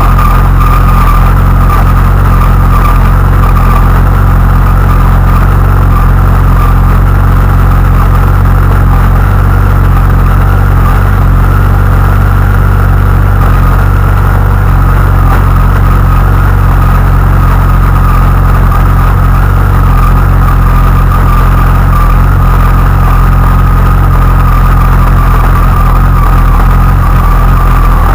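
Honda CBR1100XX's inline-four engine idling steadily after a cold start, with an abnormal mechanical noise that the owner suspects is a faulty cam chain tensioner.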